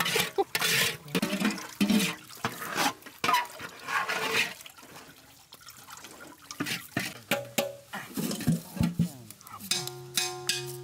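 Hands squeezing and mashing pomegranate pulp in a metal strainer over a basin of juice: wet squelching and splashing in irregular bursts. Music comes in near the end.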